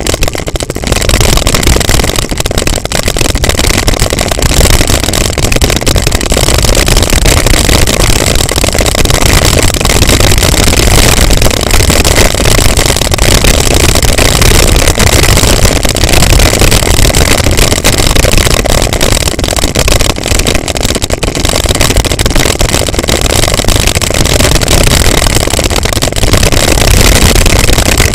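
Steady, loud wind buffeting the microphone of a camera on a mountain bike descending fast, mixed with the rumble and rattle of the bike over a gravel track.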